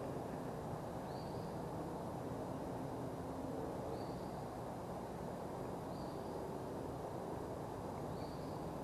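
A bird gives a short, high call four times, about every two seconds, over a steady low background rumble.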